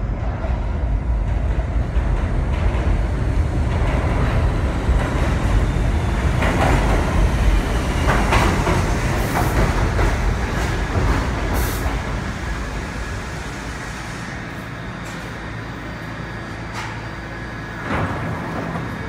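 NYC subway D train, an R68 stainless-steel car set, pulling into an underground station. A heavy rumble of wheels on rail rises and stays loud with a few sharp high noises as it brakes, then eases off about two-thirds of the way through as the train comes to a stop and sits humming. There is a short louder sound near the end.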